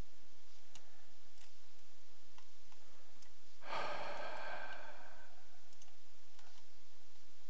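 A man sighs once, about three and a half seconds in: a breathy exhale lasting about a second. A few faint computer mouse clicks come before and after it.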